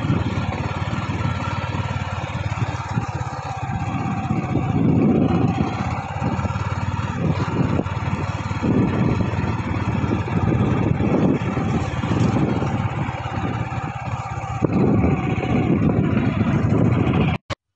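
Yamaha motor scooter's engine running steadily while being ridden, under a low rumble that swells and fades. The sound cuts off suddenly near the end.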